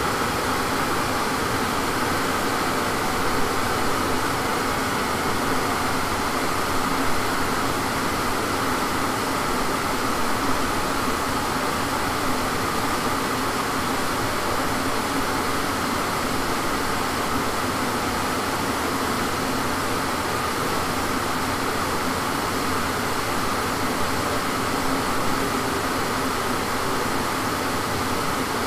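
Steady rush of air with a low mechanical hum in a chassis-dyno cell, the noise of its cooling fans; no engine revving.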